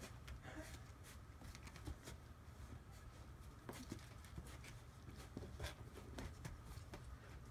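Faint scattered clicks, scuffs and rustles of Great Pyrenees puppies chewing and tugging at a sheepskin, their paws and claws scrabbling on wooden floorboards, over a low steady hum.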